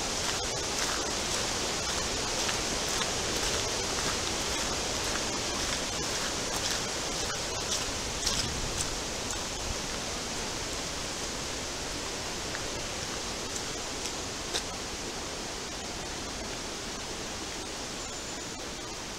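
Steady storm wind in the woodland trees, a broad even hiss that eases slightly toward the end, with a few faint clicks.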